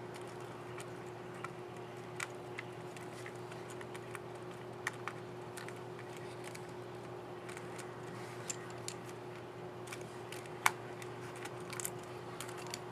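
Scattered small, sharp plastic clicks from a laptop keycap and its scissor mechanism being handled and pressed onto the keyboard, over a steady background hum. The loudest click comes about three-quarters of the way through.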